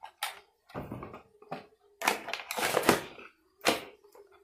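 Handling noise: a toy and its packaging being set down and picked up, a series of short rustles and knocks, the loudest about two to three seconds in.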